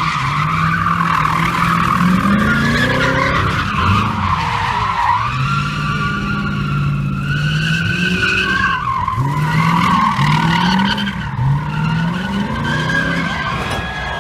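A car spinning donuts: its tires squeal and screech without a break while the engine revs, climbing and dropping back about five times.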